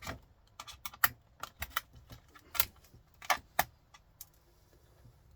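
Irregular sharp clicks and clinks of small hard parts being handled and knocked together, a dozen or so, loudest in the middle and dying away for the last second or so.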